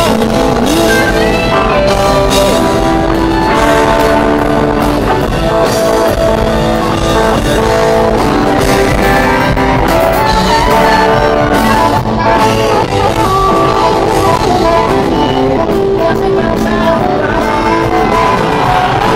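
Live rock band playing loud, with electric and acoustic guitars over bass and drums.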